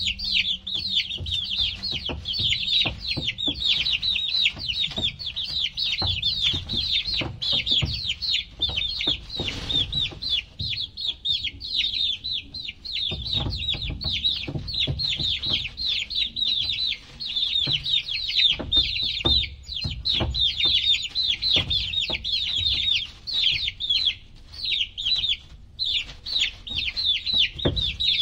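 A brood of baby chicks peeping nonstop: a dense chorus of short, high, falling chirps, many each second. Low rumbling and scattered soft knocks sit underneath.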